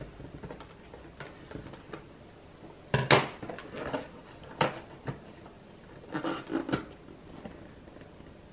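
A boxed book and its packaging being handled: a few sharp knocks and clicks, the loudest about three seconds in, then several more over the next four seconds, with faint rustling between them.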